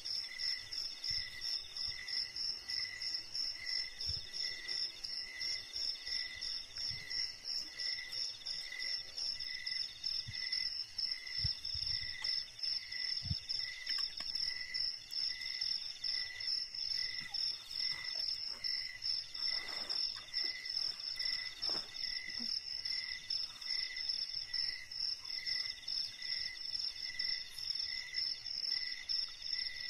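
Insects singing in an overlapping chorus: a rapid, steady high-pitched trill, a lower trill that comes in phrases of a couple of seconds, and a still lower chirp repeating somewhat more than once a second. A few faint soft knocks of cup and pot being handled sound beneath it.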